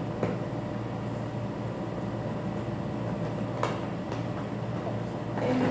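Steady low room hum, with a couple of faint taps from fingers handling a cardboard box.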